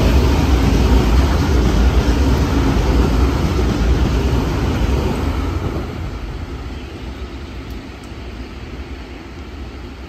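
Nankai electric commuter train passing through the station at speed without stopping: a loud, steady rumble of wheels on rails, fading away after about six seconds as the train draws off down the line.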